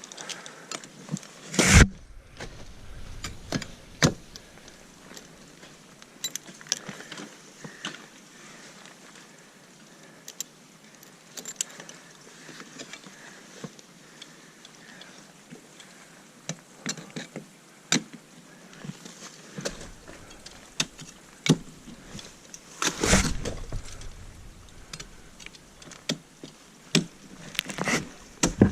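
Ice climbing on waterfall ice: irregular sharp strikes and scrapes of ice-axe picks and crampon points against the ice, with climbing hardware clinking between them. The loudest strikes come about 2 and 4 seconds in, and a longer, louder burst of knocks comes about 23 seconds in.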